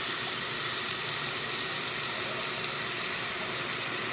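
Hot water running steadily from a faucet into a sink. The basin is filling because the drain will not take the hot water.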